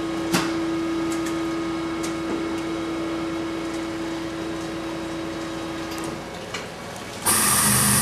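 Pneumatic wine press at work: a steady machine hum with a click as its control button is pressed, then, about seven seconds in, its motor starts up suddenly and runs on loudly, beginning the second pressing cycle.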